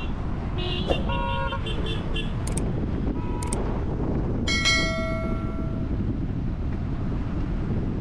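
Vehicle horns honking over a steady low rumble of road traffic: a few short toots about a second in, then one longer horn blast of just over a second around the middle.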